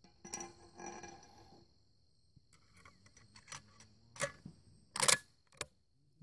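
A brass cartridge clinking against metal as it is loaded into a Remington 722 bolt-action rifle, followed by sharp metallic clicks of the bolt being pushed forward and locked closed. The loudest clicks come near the end.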